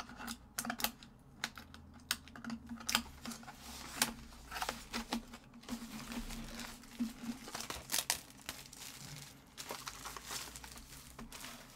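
Packaging crinkling and tearing as a sealed trading-card hobby box is opened by hand, with many irregular sharp crackles and clicks.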